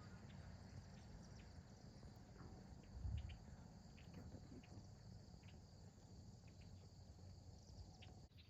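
Faint, steady chirring of crickets, over a low rumble, with a soft bump about three seconds in.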